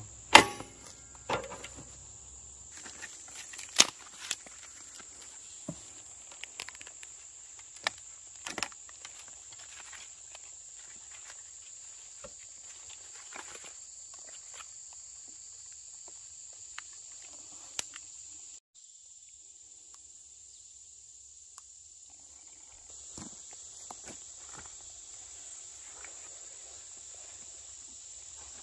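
Insects buzzing in a steady high-pitched drone, with footsteps and rustling on the leaf-littered ground. Sharp clicks and knocks come as a fat-tyre electric bike is handled and parked on its kickstand, the loudest right at the start and a few more in the first several seconds.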